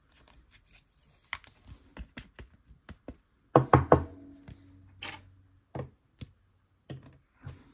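Light plastic clicks and taps as a sleeved trading card is slid into a rigid clear plastic toploader and handled, with a cluster of three louder knocks about three and a half seconds in.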